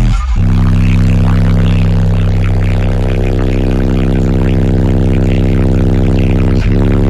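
Bass-heavy music played loud through two Skar ZVX 15-inch subwoofers on a Taramps Bass 3K amplifier, heard inside the truck's cabin: sustained deep bass notes that drop out briefly just after the start and change pitch near the end.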